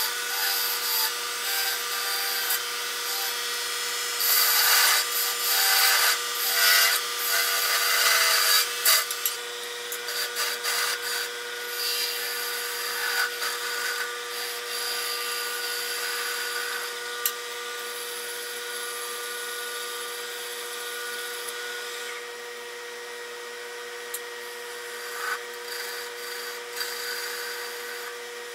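Wood lathe spinning a small wooden finial while a turning tool cuts it: a dry scraping hiss of the tool on the wood, in heavier bursts over the first nine seconds or so and lighter after, over the lathe's steady hum.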